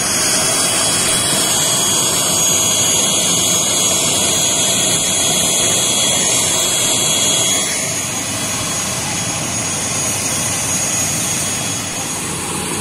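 ATR-72 turboprop engine running steadily on the ground: a steady dense noise with a high whine on top. It drops somewhat in level about eight seconds in.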